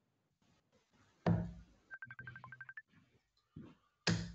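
Two loud thuds, about a second in and near the end, the first as a dart lands in the board. Between them comes a burst of rapid electronic beeps, about ten in under a second at one pitch with one lower note, a pattern that repeats every few seconds.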